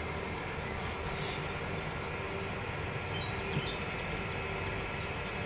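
Steady outdoor background noise: an even low rumble with a faint steady hum and no distinct events.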